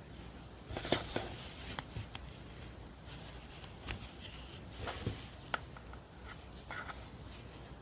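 Quiet hand-sewing sounds: soft rustles of needle, thread and quilt fabric, with a few scattered small clicks.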